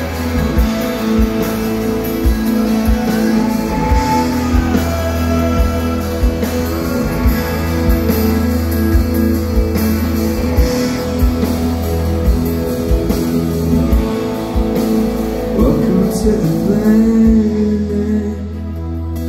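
Live rock band playing: a lead singer over guitar and a steady drum beat, amplified through a large concert sound system.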